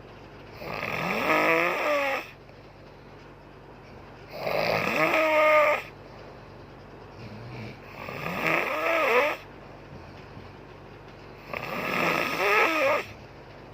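A woman snoring in her sleep: four loud snores at an even pace, about one every three and a half seconds, each lasting about a second and a half with a wavering pitch, and quieter gaps between breaths.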